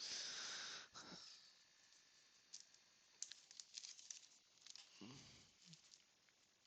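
Faint handling of trading cards and wax-pack wrappers: scattered soft taps and rustles, opening with a brief hiss that lasts under a second.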